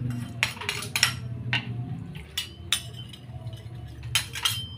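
Metal ladle clinking and scraping against the side of a wok while stirring seasoning into soup broth: a string of irregular sharp clinks, two louder ones near the end.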